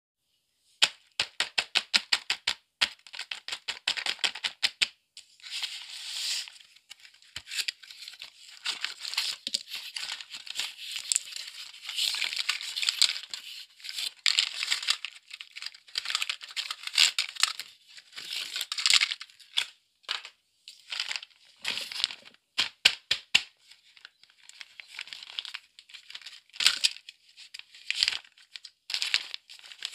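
Clear plastic toy packaging crinkling and rustling as it is handled and torn open. A quick run of sharp clicks and taps comes in the first five seconds.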